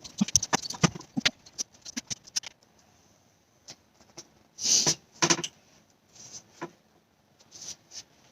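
Plastic being handled for an oil fill: a run of light clicks and taps, then a short louder rustle about halfway through, followed by a few more clicks.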